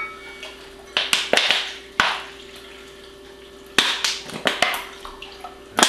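A nearly empty plastic squeeze bottle of lemon juice squeezed in several short spurts, sputtering juice and air with sharp clicks of the plastic.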